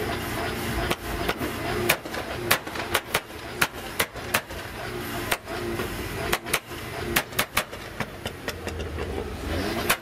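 A tuned car's engine running with a low rumble, cut through by an irregular string of sharp exhaust pops and crackles. The car moves off near the end.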